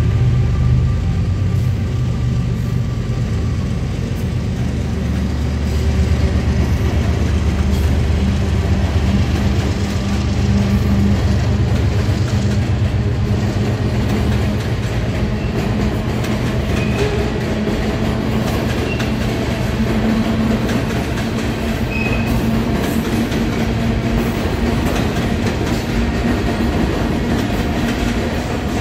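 Freight train's covered hopper cars and then tank cars rolling past steadily, steel wheels running on the rails.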